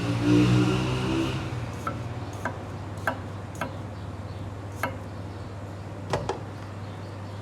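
A series of sharp, separate clicks or taps at uneven spacing, about seven in five seconds, over a steady low hum; the hum is louder, with some hiss, in the first second.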